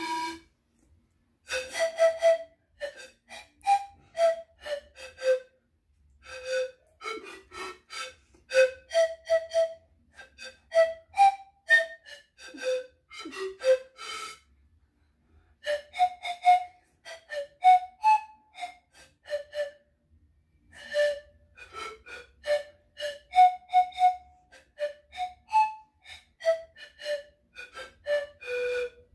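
Panpipe played as a simple melody of separate notes, each starting with a puff of breath, in short phrases with brief pauses between them.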